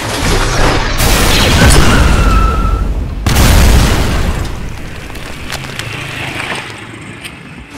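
Cinematic explosion sound effects: a sudden blast about a second in, then a second, heavier boom a little after three seconds that dies away slowly.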